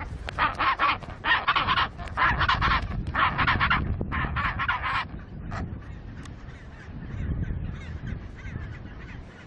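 Penguin giving a run of five harsh, pulsed calls, each about half a second long, over the first five seconds. After that only a low rumble is left.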